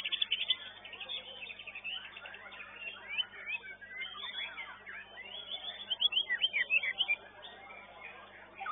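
White-rumped shamas singing: quick chirps, trills and whistles overlapping. A fast rattling trill comes at the start and a run of loud, separate whistled notes about six seconds in.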